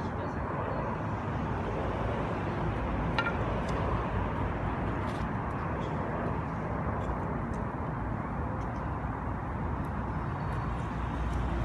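Steady low rumbling outdoor background noise, with a few faint clicks about three seconds in.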